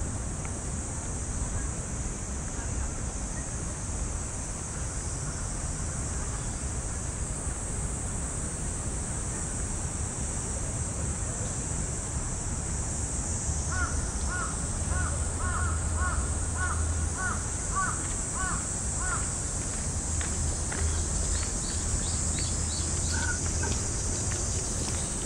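A crow cawing in a quick run of about ten short calls, roughly two a second, partway through. Beneath it runs a steady high-pitched drone of summer cicadas.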